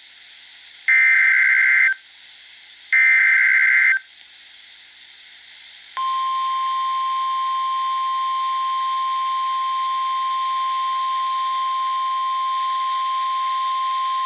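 Emergency Alert System SAME header data bursts: two harsh one-second screeches of digital tones a second apart, the tail of the three-burst header that encodes a new tornado warning. After a short pause, a single steady warning alarm tone starts about six seconds in and holds.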